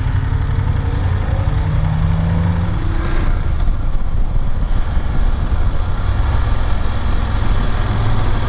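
BMW F750GS parallel-twin motorcycle engine heard from the bike itself as it accelerates, its note rising a little over the first three seconds and then running steadily at cruising speed, mixed with wind and road noise.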